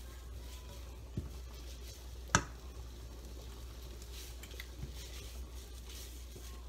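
Silicone spatula stirring and breaking up diced bacon in a nonstick frying pan, with a faint sizzle as the bacon starts to cook. One sharp knock a little over two seconds in, with a smaller one before it.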